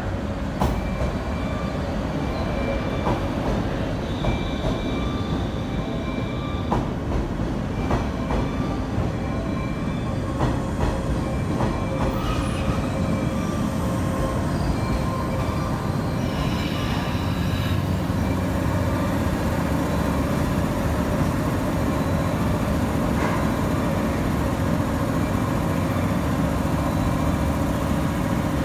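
A train moving along the platform tracks: a steady rumble with wheels clicking over rail joints through the first half. Brief high-pitched wheel squeals come a few seconds in and again past the middle, and the rumble grows a little louder toward the end.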